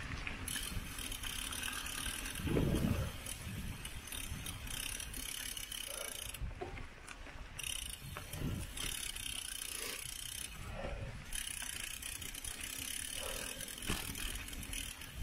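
A mountain bike rolling along a path, its rear hub freewheel ticking as it coasts, with tyre and rolling noise and a few low rumbles.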